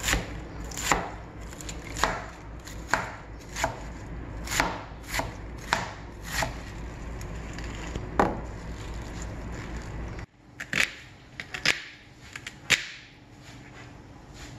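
Chef's knife chopping karmi saag (water spinach) stems on a plastic cutting board: about ten single, unhurried strokes, each a sharp knock. After a break about ten seconds in, a few lighter knife knocks on a wooden board as an onion is cut.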